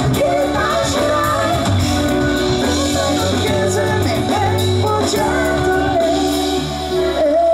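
Live band playing a song: a woman singing lead over keyboard, electric bass and drums.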